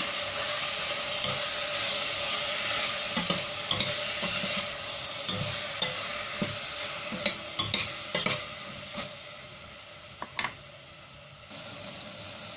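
Onions, tomatoes and chicken pieces sizzling in a metal saucepan as they are stirred, with repeated clicks and scrapes of the spoon against the pot. The sizzle dies down over the last few seconds.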